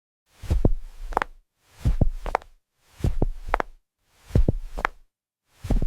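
High-heel footsteps walking slowly, starting about a third of a second in. Each step is a dull knock followed by a sharper click, about one step every 1.3 seconds, so the rhythm falls in even double beats.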